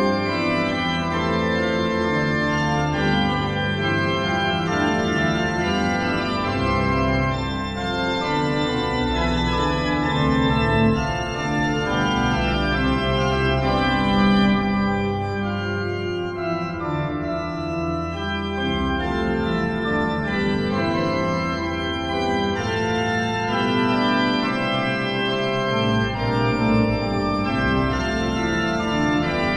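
Pipe organ music played on the Hauptwerk virtual pipe organ, a sampled pipe organ: sustained chords over a deep bass line, changing steadily without a break.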